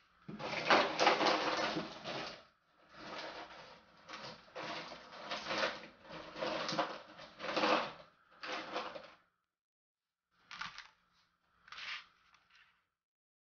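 Clattering and rustling of someone rummaging in a container, in irregular bursts for about nine seconds, then two short clacks near the end.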